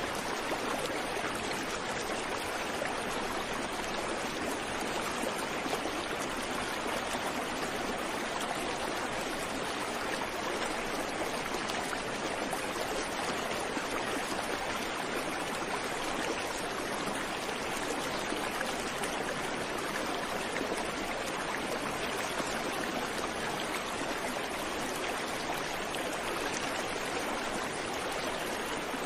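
A river running: a steady, even rush of flowing water that does not change.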